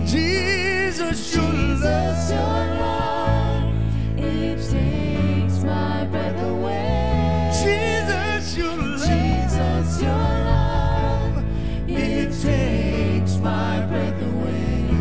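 Live contemporary worship music: a lead vocalist sings with wavering, sliding pitch over keyboard, low bass notes and drums with cymbal strokes.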